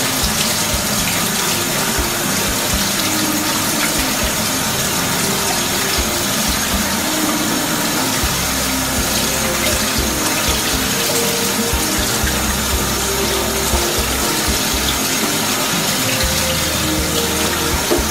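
Kitchen tap running steadily onto freshly boiled rice in a plastic colander, the water splashing through into a stainless steel sink as the rice is rinsed to cool it.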